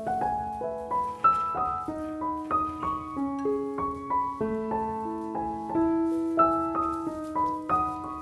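Background piano music: a gentle melody of single notes, a new one every half second or so, over longer-held low notes.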